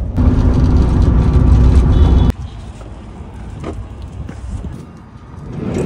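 Diesel Sprinter van's engine and road noise heard from inside the moving cab, loud and steady with a held hum. It cuts off abruptly about two seconds in to much quieter outdoor sound with a few faint ticks.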